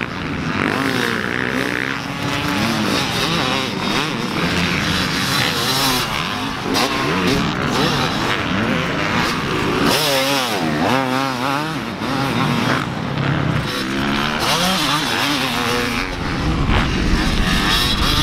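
Yamaha 250 dirt bike engine revving on a motocross track, its pitch repeatedly climbing and dropping off with the throttle. About ten seconds in it wavers rapidly up and down.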